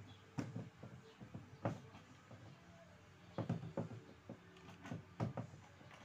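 Irregular knocks and clatters of hard plastic and metal parts as the washing machine's wash-tub base and drive pulley are handled, several sharp knocks with a few clustered together near the middle.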